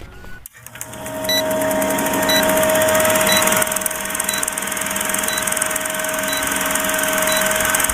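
Old-film countdown sound effect: a steady film-projector whirr with a fast rattle and a constant hum, marked by a short tick once a second. It starts about a second in.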